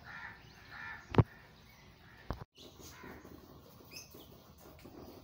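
Birds calling: a few short, harsh calls in the first second, then a sharp knock, the loudest sound, just over a second in, and a fainter knock about a second later. Faint high chirps follow.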